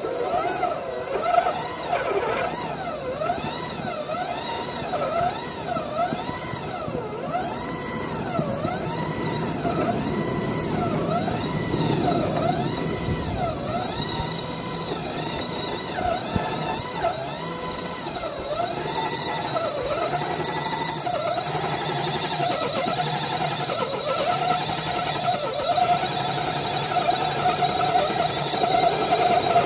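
Backyard railroad train running along the track while pushing a homemade snow plow. Its drive gives a mechanical whir whose pitch rises and falls in a repeating sweep about once a second, over a steady running hum.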